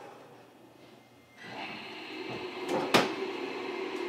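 Inside a JR Kyushu 305 series electric multiple unit as it gets under way: about a second and a half in, a steady electrical whine and hum from the traction equipment sets in and holds, with one sharp clack about three seconds in.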